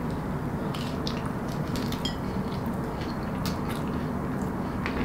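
Light clicks and taps of food and a plate being handled, a few scattered over a steady background hiss.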